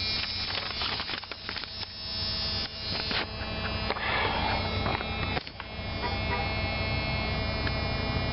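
A steady buzzing hum runs throughout, with rustling and crackling handling noise over roughly the first five seconds.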